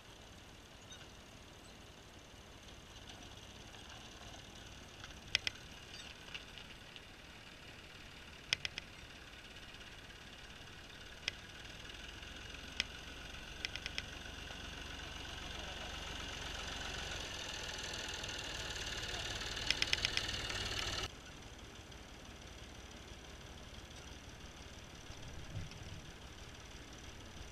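Farm tractor engine running and growing steadily louder as the tractor draws near, with a few sharp metallic clanks along the way. About 21 seconds in, the engine sound drops away suddenly.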